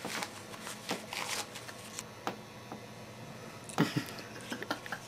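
Paper banknotes rustling and crinkling as they are handled and passed from hand to hand, in short scattered rustles, loudest about four seconds in.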